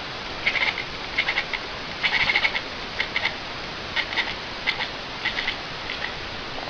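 An animal making quick runs of short, high chirping calls, several bursts a second apart, over a steady hiss.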